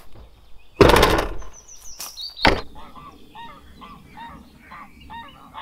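An SUV's rear hatch slammed shut about a second in, followed by a brief high squeal and a second sharp knock. From about three seconds on, geese honking faintly and repeatedly over a steady low background.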